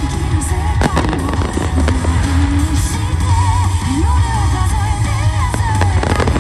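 Fireworks bursting with sharp bangs and crackling over loud music with a heavy, steady bass.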